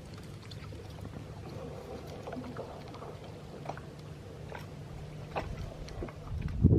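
Boat engine running steadily, a low hum, with scattered small clicks and a louder knock near the end.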